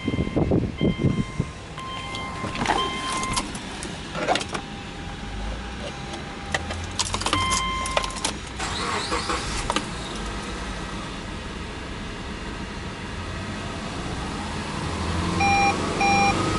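Keys jangling in the ignition and the dashboard warning chime, then the Subaru Legacy Touring Wagon's 2.0-litre EJ20 flat-four cranks and starts about eight to nine seconds in and runs steadily. Near the end the revs rise, with two short beeps.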